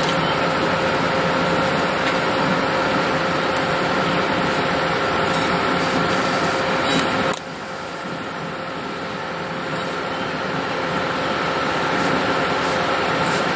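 EMD SD70ACe diesel-electric locomotives running as they roll past, a steady engine hum with two held tones. The sound drops suddenly about halfway through as the last unit goes by, then slowly builds again.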